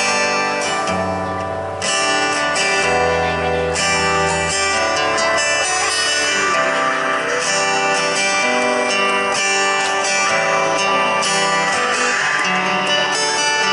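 Acoustic-electric guitar playing an instrumental break in a pop song, with no singing.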